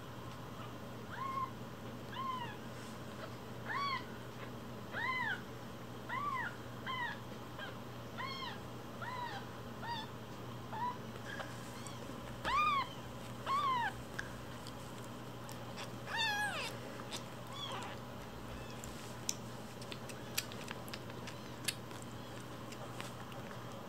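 A kitten about a week old mewing, a dozen or so short high-pitched mews about one a second, the loudest two about halfway; the mews stop about two-thirds of the way through, followed by a few sharp clicks near the end.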